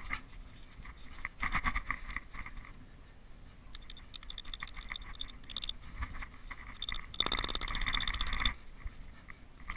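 A hatchet scraping and chopping into snow, with crunching and small clicks, and a louder stretch of scraping for about a second and a half near the end.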